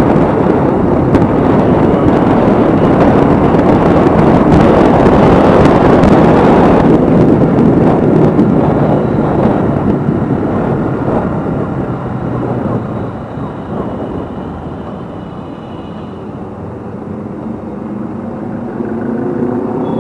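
Motorcycle riding along the road at speed: a steady rush of wind and road noise with the engine beneath it, loudest for the first seven seconds or so and then easing off as the bike slows.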